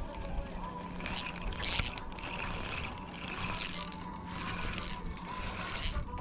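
Spinning reel being cranked, its gears and bail turning with a light mechanical whirring as line is retrieved.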